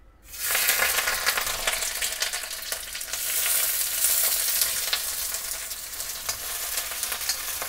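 Parboiled onion pieces hitting hot oil in a kadhai and frying, the sizzle starting suddenly about half a second in, with a steel spatula clicking and scraping against the pan as they are stirred.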